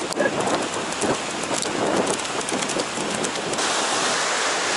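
Irregular splashing of a horse cantering through shallow surf, over a constant rush of surf and wind. The noise grows broader and louder about three and a half seconds in.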